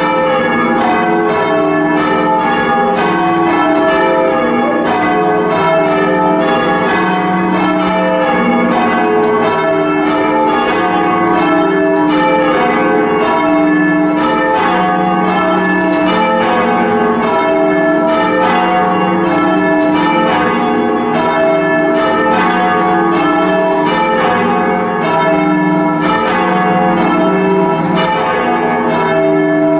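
Church bells rung full circle in change ringing: strokes follow one another in an even rhythm, each note ringing on into the next.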